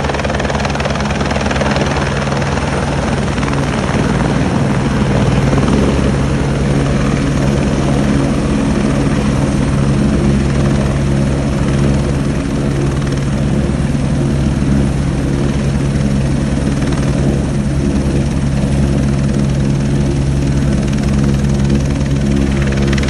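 Turbine helicopter of the AS350 Écureuil type hovering low and settling onto its skids, then running on the ground with its rotors turning: a loud, steady rotor and engine noise.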